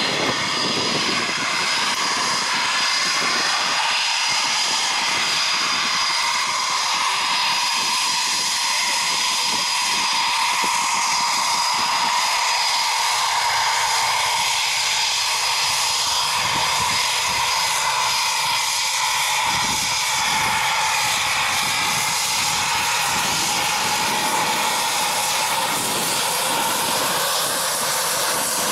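A Transall C-160's Rolls-Royce Tyne turboprops and a taxiing Eurofighter Typhoon's jet engines running on the ground. The noise is loud and steady, with a high, steady whine over it.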